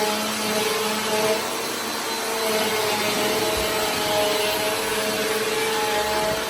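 Vacuum cleaner running: a steady motor whine over a hiss of rushing air, its tones wavering slightly in pitch.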